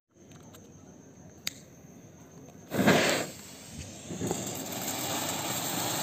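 Anar (flower-pot fountain firework) being lit: a click, then a short loud hiss near the middle. The fountain then catches and its spark spray hisses steadily, growing louder toward the end.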